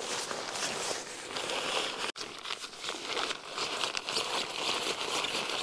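Plastic bags and camping gear crinkling and rustling as a cyclist's kit is packed up, a busy crackly handling noise broken by one brief gap about two seconds in.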